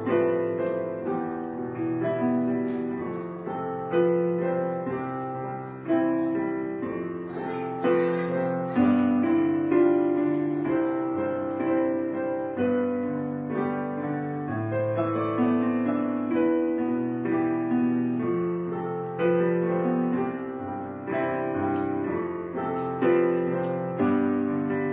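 Background piano music only: notes and chords struck every second or two and left to ring and fade.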